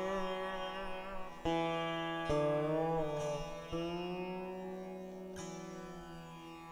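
Background music: a sitar playing slow plucked notes that bend in pitch, over a steady drone.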